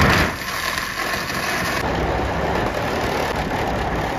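Reciprocating saw running loud and steady as its blade cuts through the van's sheet-metal roof, starting abruptly.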